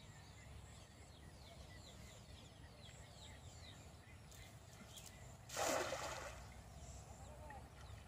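A cast net thrown into a pond lands on the water with one short splash about five and a half seconds in. Faint bird chirps run underneath.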